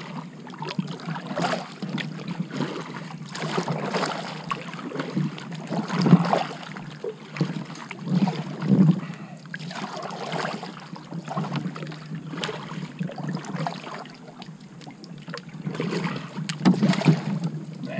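Double-bladed kayak paddle strokes: the blades dipping into and pulling through river water, splashing and dripping in an uneven rhythm of roughly one swell every couple of seconds, with small knocks scattered between.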